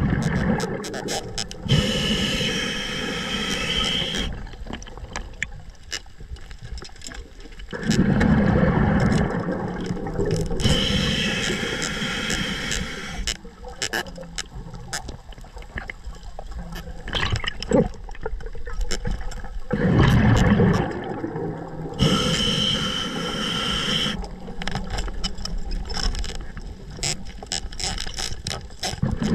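Scuba regulator breathing underwater: three long hissing inhalations, each followed by a rumbling burst of exhaled bubbles. Small clicks and scrapes fall in between.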